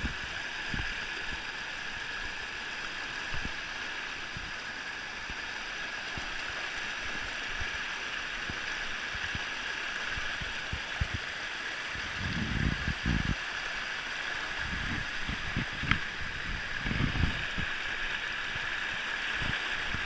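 Shallow river rapids rushing steadily over rock ledges. A few low thumps come about twelve seconds in and again between fifteen and seventeen seconds.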